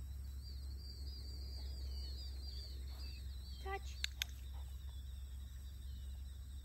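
A hand-held dog-training clicker clicks twice in quick succession about four seconds in, just after the spoken cue "Touch", marking the moment the dog touches the target. Before it, a bird twitters high-pitched over a low steady outdoor rumble.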